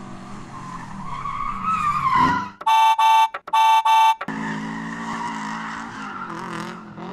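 Car engine sound revving up with a rising whine and tyre squeal, then four loud beeps in two quick pairs, then the engine running steadily again.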